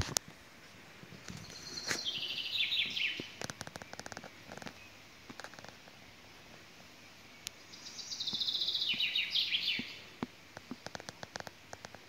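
A songbird singing two phrases of rapid notes that step down in pitch, each about two seconds long, the second about six seconds after the first.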